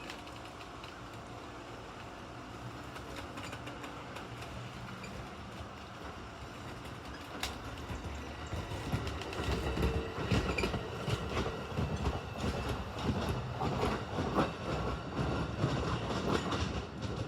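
A train passing on the track: a steady rumble that grows louder about eight seconds in, with rapid clickety-clack of wheels over rail joints.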